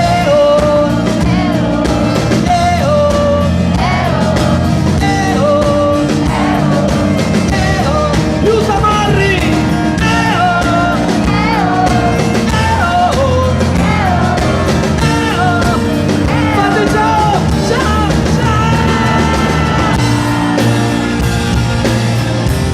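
Live pop-rock band playing a song's closing section: a wavering melodic lead line over steady bass and drums.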